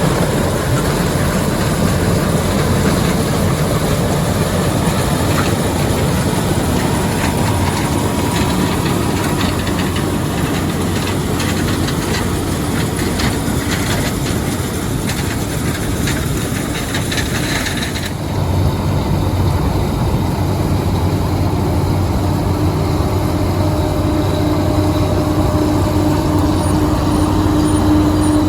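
Heavy farm machinery running steadily during corn harvest, with a mechanical clatter over a low engine hum. About two-thirds of the way through, the clatter cuts off suddenly and a lower, steadier hum carries on.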